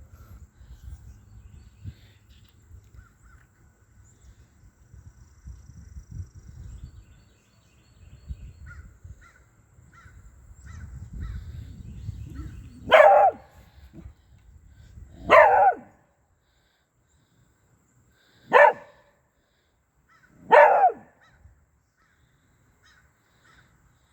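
Small dog barking four times, a few seconds apart, at a bird. Faint high chirps are heard before the barks.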